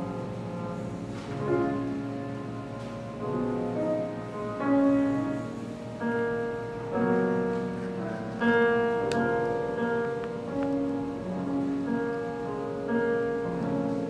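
Live music from a small band: piano with held trumpet notes in a slow series of phrases.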